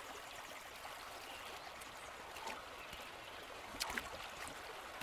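River water rushing steadily, with one sharper splash about four seconds in.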